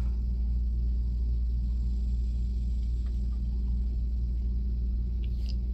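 Steady low background hum, with a couple of faint soft ticks about three seconds in and near the end.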